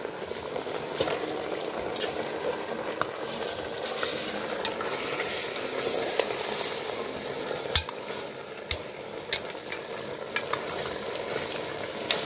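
Chicken and pork sizzling in a cast-iron potjie pot while a metal spoon stirs through it, with several sharp clicks and knocks scattered through.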